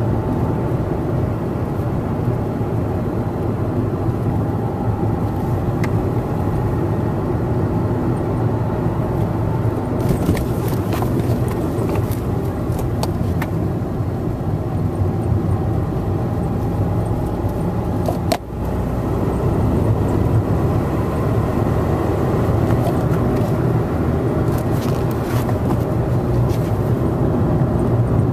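Car engine and road noise heard from inside the cabin while driving, a steady low drone that dips briefly about eighteen seconds in. Scattered light ticks and rattles come and go twice.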